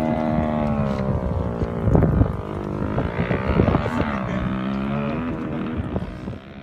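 An engine running, its pitch slowly rising and falling, with a few sharp knocks, starting to fade out at the very end.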